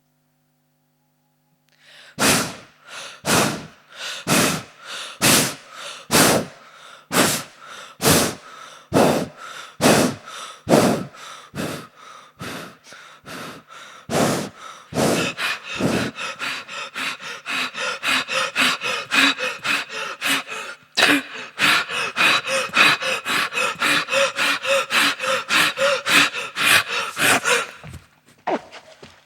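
A person breathing loudly in gasps, about one a second at first, quickening about halfway into rapid panting, then stopping just before the end.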